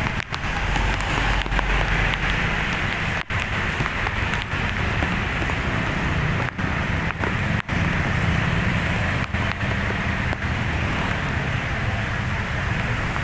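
Road traffic noise: a vehicle engine running under a steady hiss, broken by a few brief dropouts. No horn tune sounds.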